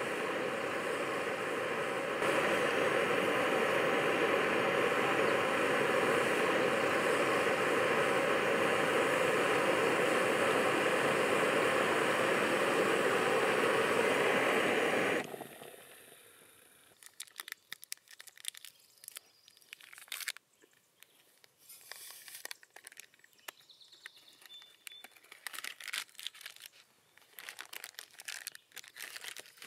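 Jetboil camp stove's gas burner running with a steady roaring hiss while its water boils, then shut off abruptly about halfway through. After that, plastic food pouches and a zip-top bag crinkle and rustle with small clicks as they are handled.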